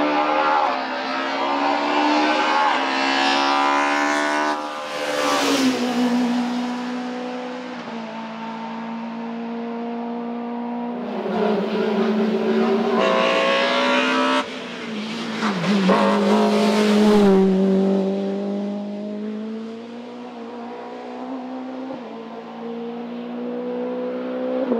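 E30 BMW M3 hillclimb race car engines accelerating hard, the engine note climbing through the revs and dropping at each gear change. There are loud surges of engine and tyre noise as cars pass close, about five seconds in and again between about eleven and seventeen seconds, with a quieter, more distant engine note afterwards that rises again near the end.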